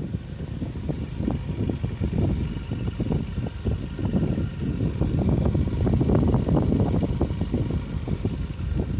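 A 2009 Subaru Outback's boxer engine idling, heard at the tailpipe of its new stainless steel cat-back exhaust: a steady, low exhaust note with a light fluttering pulse.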